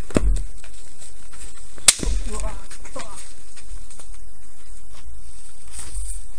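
Bamboo shinai striking each other in a two-sword kendo bout: sharp cracks, one near the start and the loudest just before two seconds in, followed by a short shout.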